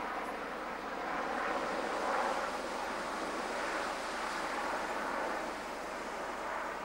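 Sea King helicopter flying overhead: a steady rush of rotor and turbine noise with no sharp events, dipping slightly near the end.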